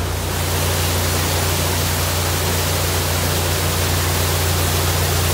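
Water pouring through and over the leaking top gates of a deep canal lock into the chamber as the lock empties: a steady rushing hiss, with a steady low hum underneath.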